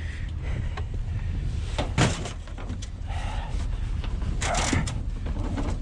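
Footsteps crunching on snow and ice, with a few sharper crunches or knocks, the loudest about two seconds in, over a steady low rumble.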